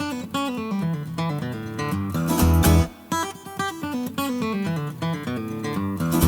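Background music led by guitar, with plucked and strummed notes over a bass line.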